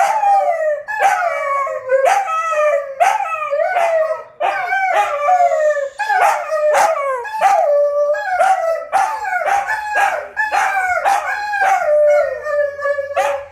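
Two wolfdogs howling together: a loud, rapid string of short howls and yips, each dropping in pitch, overlapping one another.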